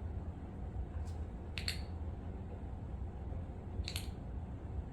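Nail clipper cutting fingernails: sharp snipping clicks in close pairs, twice, about two seconds apart, over a low steady hum.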